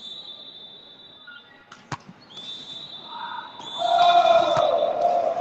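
Volleyball rally in a large hall: a single sharp strike of the ball about two seconds in, then spectators' shouting and cheering swelling loudly from about three and a half seconds in as the point is won, over a steady high-pitched tone.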